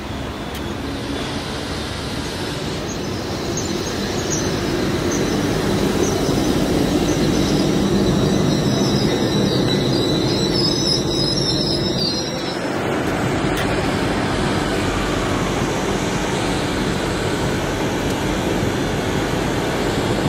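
Great Western Railway Class 800-series Intercity Express Train running into the platform, its rumble building as it draws level. From about three seconds in, a high-pitched brake squeal rises and falls for several seconds as it slows, then stops suddenly, leaving a steadier train rumble.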